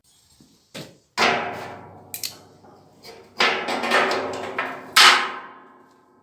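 Steel parts knocking and clanking while being handled and fitted, several separate strikes that each ring on afterwards, the loudest a little before the end.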